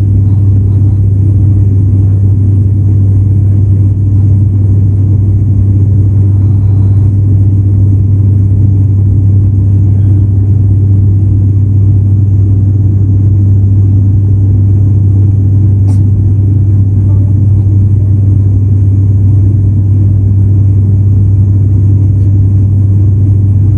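Cabin drone of an ATR 72-500 turboprop's engines and propellers in cruise: a loud, steady low hum with a rushing noise over it. A single faint click about two-thirds of the way through.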